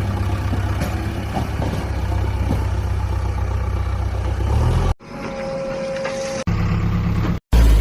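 Engine sound of a heavy vehicle idling with a steady low rumble. About two-thirds through it cuts off abruptly to a quieter stretch with a faint steady whine, then comes back briefly before a short dropout.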